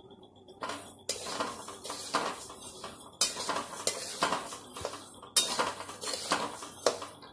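Coriander seeds being dry-roasted in a metal pan, stirred with a metal spoon or spatula: steady scraping and rattling of seeds and utensil against the pan, in a few stretches that start abruptly.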